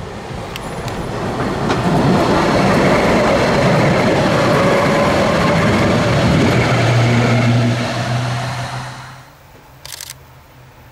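Tatra T4D tram approaching and passing close by, its wheels running on the rails with a rumble that grows, holds loud for several seconds, then fades away. A steady low motor hum stands out near the end of the pass, and a short click follows about ten seconds in.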